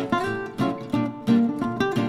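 Background music: plucked acoustic guitar playing notes and chords, a new note every third to half second.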